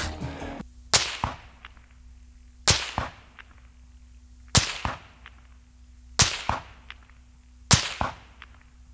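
Five 5.56 rifle bullets from a suppressed M4 arriving at a muddy dirt target from about 300 yards, spaced about a second and a half to two seconds apart. Each is a sharp whip crack of the supersonic bullet passing, followed about a third of a second later by a fainter second report.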